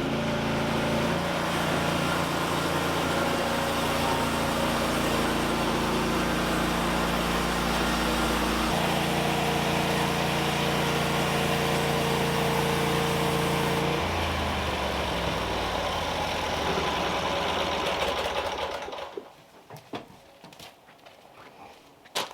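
A small engine running steadily, its pitch stepping up about nine seconds in and dropping back about fourteen seconds in. It dies away about nineteen seconds in, leaving a few faint clicks.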